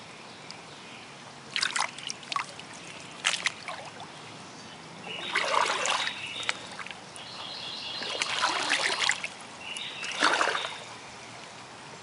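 Shallow creek water trickling steadily, broken by several irregular splashes of feet wading through it; the longest splashes come about five, eight and ten seconds in.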